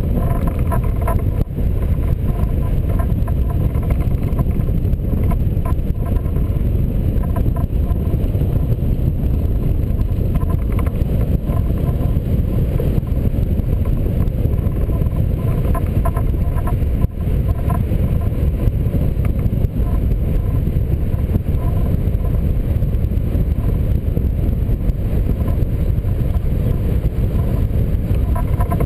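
Airflow over the glider in flight, heard as a loud, steady rush of wind buffeting the glider-mounted camera's microphone.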